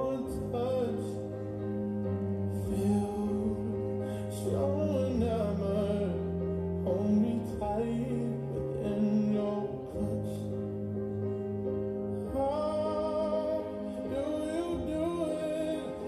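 A song playing: a voice singing over long held chords.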